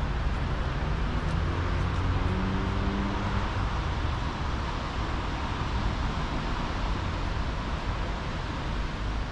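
Steady road traffic noise, a continuous rumble and hiss of passing vehicles, with a faint engine-like hum in the first few seconds.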